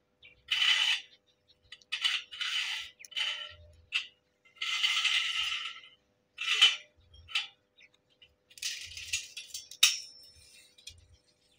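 Stick (arc) welding on a steel gate frame: the welding arc crackles and hisses in a string of short bursts, one tack weld after another, with the longest run of about a second and a half near the middle.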